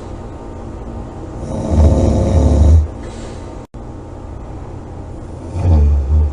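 A person snoring loudly: two deep snores about four seconds apart, each lasting a second or so, with steady low background noise between them.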